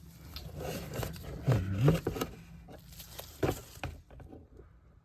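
Hand work on an oil burner's metal parts and tools: scattered scrapes, clicks and a few sharp knocks, dying down near the end.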